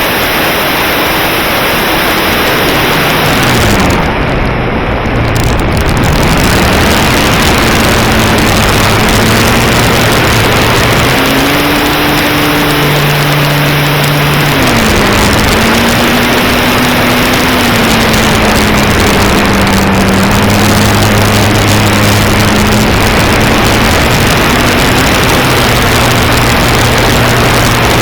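Propeller aircraft motor running in flight under heavy rushing wind noise. Its pitch dips and comes back about four seconds in, steps up near eleven seconds and drops again near fifteen as the throttle changes.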